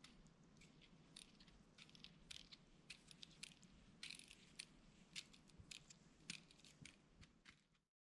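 Faint, irregular light ticks and crackles of falling wet snowflakes landing on the camera and its microphone, over a quiet low hush.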